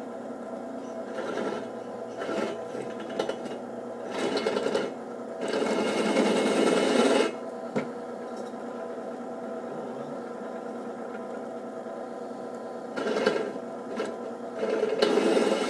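Drill press motor running steadily while its bit cuts a hole in the steel lathe stand, with several louder spells of cutting noise as the bit is fed down, the longest about six seconds in and another near the end.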